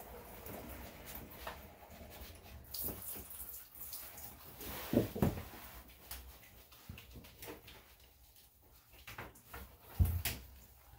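Small dog being washed in a grooming tub: scattered splashes, drips and light knocks, with no steady running water. The loudest come about five seconds in and again near the end.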